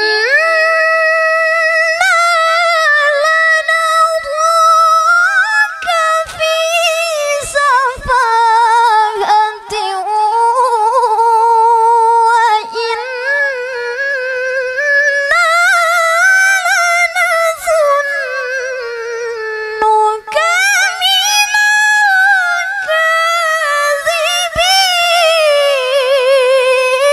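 A woman's voice reciting the Quran in the melodic tilawah style into a microphone: long, high, ornamented phrases with wavering melismas, broken by a short pause for breath about twenty seconds in.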